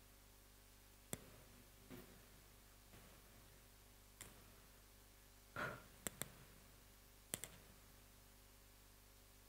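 Near-silent room tone broken by scattered short clicks and taps, about eight in all, with a slightly longer, louder one a little past halfway followed by a quick pair.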